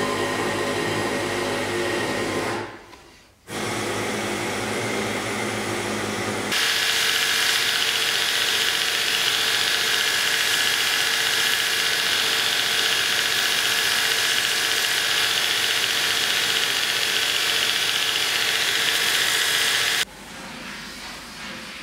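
Belt grinder running steadily with a loud, even hiss, its sanding belt beside a leather-covered scabbard; it starts about six seconds in and cuts off abruptly near the end. Before it, a few seconds of background music.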